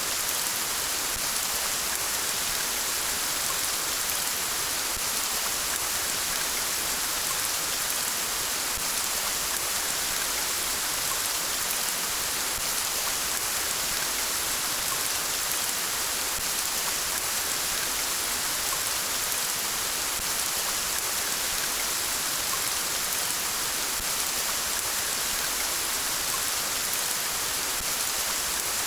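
Steady rain falling: an even hiss of dense raindrop patter that holds unchanged throughout, with no thunder.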